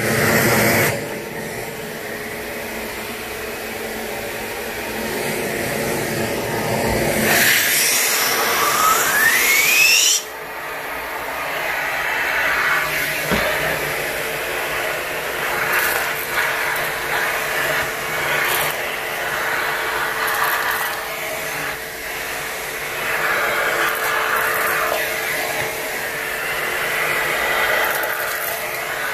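ProTeam Super CoachVac backpack HEPA vacuum running, its hose sucking up torn synthetic fabric and bean filling from the floor. About a third of the way in a whine rises in pitch for a few seconds, then drops away suddenly as the suction note returns to steady.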